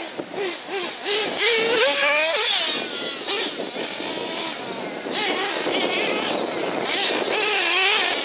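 Radio-controlled off-road cars racing on a dirt track. Their motors whine, rising and falling in pitch as they speed up and slow down, over a steady hiss of tyres on loose dirt.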